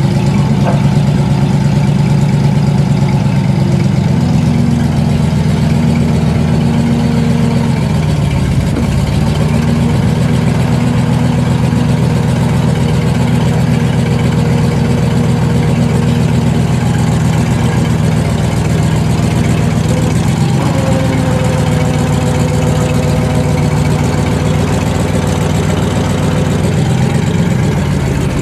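A 1979 Chevrolet C70's eight-cylinder gas engine running steadily while the truck stands still, powering the hydraulics as the boom and auger are worked. A fainter, higher steady whine comes in and drops out twice.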